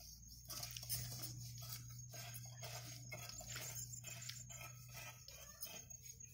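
Faint rustling and crackling of leaves and stems as marigold flowers are picked by hand, over a steady high insect drone.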